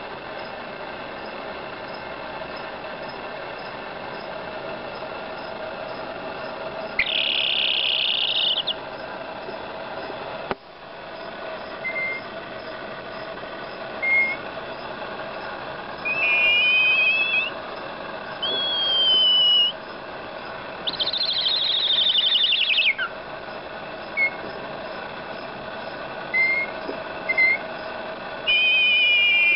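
Baby chick making sleepy noises as she falls asleep: high-pitched trills lasting a second or two, a few chirps that dip and rise in pitch, and scattered short single peeps, over a steady faint hum.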